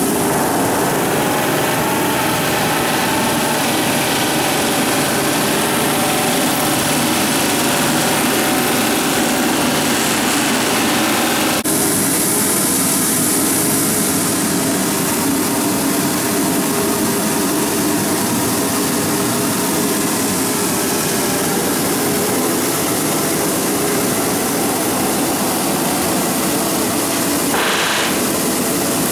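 Pneumatic rivet guns rattling continuously as they drive hot rivets into a riveted steel ship's hull plate, over the steady running of the rivet forge. The mix shifts abruptly about twelve seconds in.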